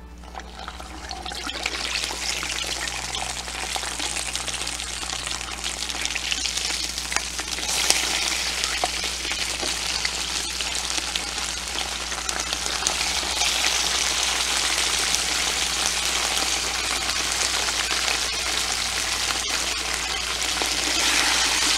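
Hot oil in a turkey fryer sizzling as foil-wrapped chicken packets are dropped into it. It starts within the first second and grows louder over the first several seconds as more packets go in, then holds steady.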